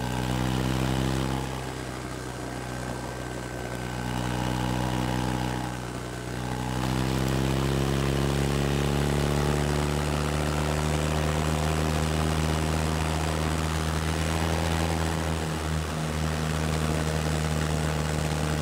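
BMW Rockster's boxer-twin engine pulling the bike through corners: its pitch climbs as it accelerates, eases off briefly about one and a half and six seconds in, then runs fairly steadily.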